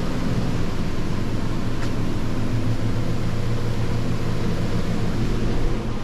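Steady low mechanical drone with a constant hiss over it, even and unbroken, with one faint tick about two seconds in.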